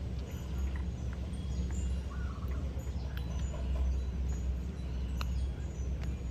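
Steady low rumble, like wind on the microphone, with scattered short high chirps and clicks.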